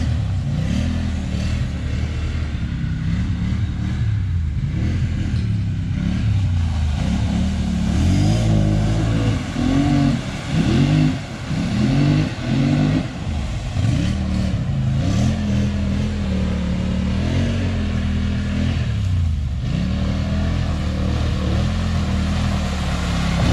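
ATV engines running under throttle, revving up and dropping several times in quick succession around the middle, then holding a steadier drone.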